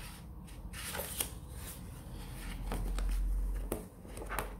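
Paperback books being handled: covers sliding and pages rustling, with a few light clicks and a low rumble near the middle.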